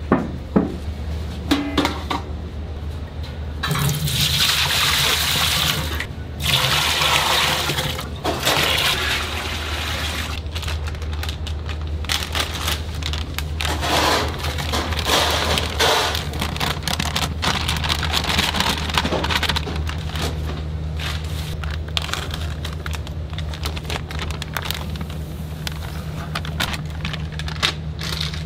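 Kitchen work over a steady low hum, with stretches of rushing, pouring noise and scattered clicks. Dry flour slides out of a plastic bag into a stainless-steel pot, rustling the bag.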